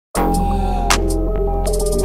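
Background music: held chords over a steady bass, with drum hits and a quick run of them near the end.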